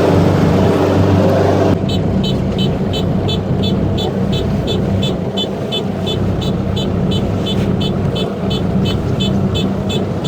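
Combine harvester running steadily with a low engine hum. About two seconds in, the sound changes abruptly and a high, regular beeping, about three beeps a second, sounds over the hum.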